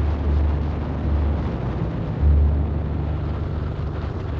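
Harley-Davidson V-twin motorcycle at cruising speed on the open road, a steady low engine and road rumble mixed with wind rushing over the microphone that swells and eases.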